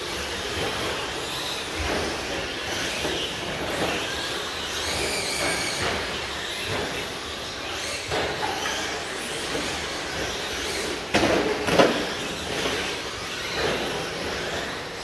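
Short course RC trucks running on the track, their motors whining as they speed up and slow down. A loud clatter of sharp knocks comes about eleven seconds in.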